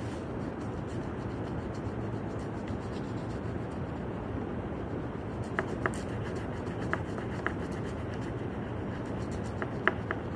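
Crayon rubbing and scratching steadily on paper as a sheet is coloured in. A few light clicks come in the middle and again near the end.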